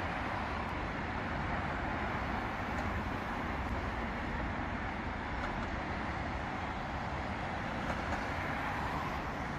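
Road traffic on a multi-lane city road: cars passing with steady tyre and engine noise, swelling a little as vehicles go by.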